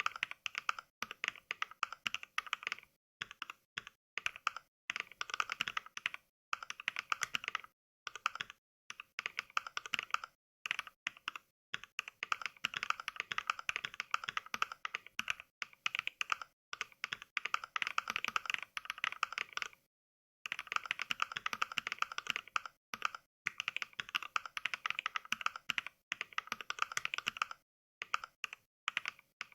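Fast mechanical-keyboard typing clicks played by the Mechvibes 'NK Cream' sound pack, a recording of NovelKeys Cream switches, one click per keystroke. The clicks come in quick runs with short pauses between them and a longer pause about 20 seconds in, and the pauses are dead silent.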